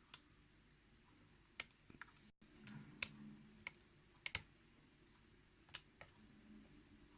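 Lock pick working the pins of a pin-tumbler challenge lock under tension: a handful of faint, sharp clicks spaced irregularly as pins are lifted and set.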